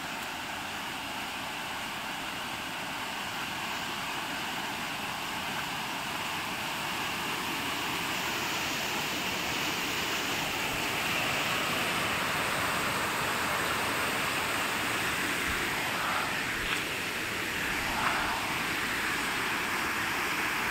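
A steady, even rush of water that grows slowly louder, with two faint knocks near the end.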